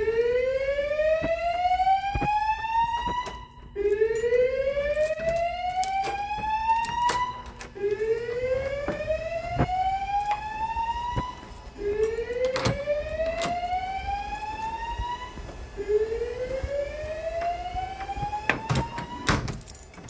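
Fire alarm voice-evacuation speakers on a Notifier NFS2-3030 system with DVC sounding the slow whoop evacuation tone: five rising sweeps, each about three and a half seconds long and starting again every four seconds, with a few sharp clicks over them.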